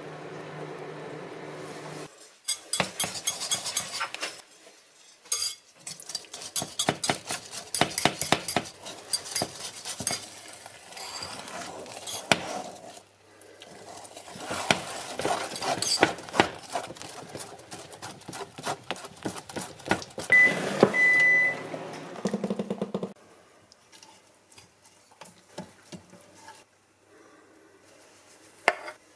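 Wire whisk beating cake batter in a bowl, clinking rapidly and unevenly against the bowl's sides in long runs. A steady hum plays for the first two seconds, and a short high beep sounds about two thirds of the way through.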